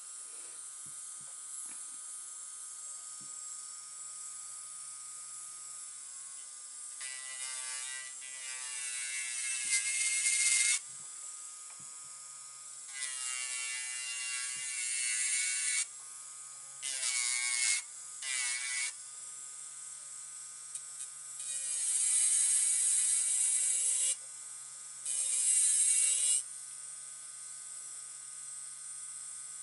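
Electric nail drill (e-file) running with a steady high whine, broken by about six louder grinding bursts of one to four seconds each as the spinning bit is worked against an artificial nail. At the start of several bursts the whine glides up in pitch.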